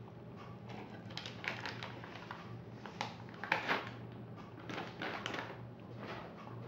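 Paper interleaving from sliced Parma ham rustling and crinkling as it is handled and pulled away from the slices, in a string of irregular crisp crackles that peak in the middle.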